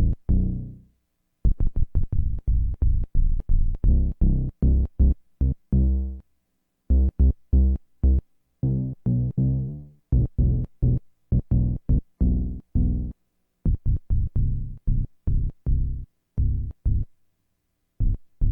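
Moog Matriarch analog synthesizer playing short, plucky pitched notes with a strong low end, about three to four a second, in phrases broken by brief pauses.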